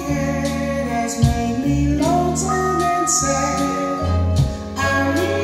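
A song with a singer, played back from a home-recorded type I cassette on a 1982 Marantz SD 820 three-head cassette deck through an amplifier.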